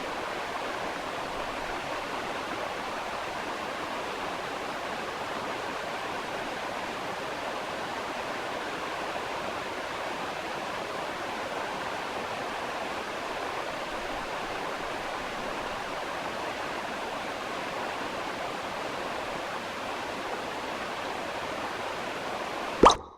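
Steady, even rushing noise like flowing water, with no rhythm or change. Just before the end it breaks off with a short sharp sound.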